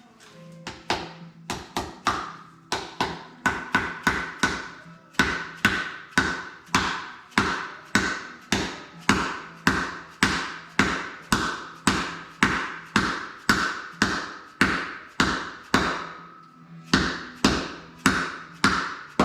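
Hammer blows on metal, struck steadily at about two a second, each with a short ring, with a brief pause near the end, during work on a truck's wheel hub and seal.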